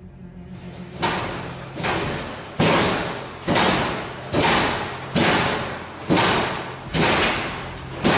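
Loud bangs repeating at an even pace of a little more than one a second, starting about a second in. Each hits sharply and dies away over most of a second, with a steady low hum underneath.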